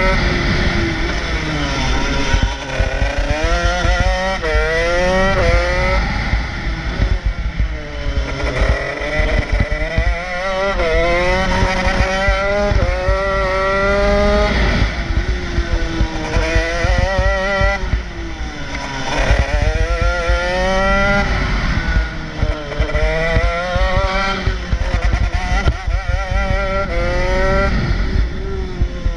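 Honda CR125 two-stroke single-cylinder engine of a shifter kart at racing speed, its pitch climbing through the gears with a quick drop at each upshift, then falling away under braking for the corners, again and again. Wind rushes over the onboard microphone underneath.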